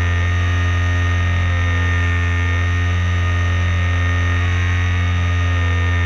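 Propeller-driven RC airplane's motor heard from an onboard camera: a loud, steady hum that holds one pitch throughout, the throttle held constant.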